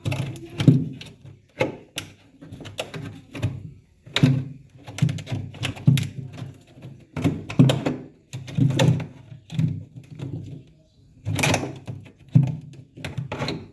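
An irregular series of knocks and thuds, about two a second with a couple of short pauses, as of hard parts being handled and tapped while working on a refrigerator.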